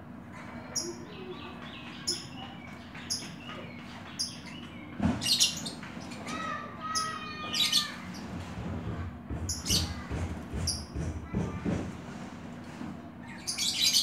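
Oriental magpie-robin (kacer) calling in its cage: short high chirps repeated about every half-second to second, broken by a few louder, fuller song phrases. Several dull thumps around the middle come from the bird moving about the cage.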